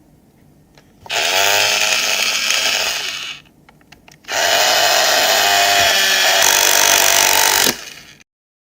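Power drill run twice: it spins up with a rising whine about a second in, runs for about two seconds and winds down, then after a few faint clicks spins up again for about three seconds before stopping.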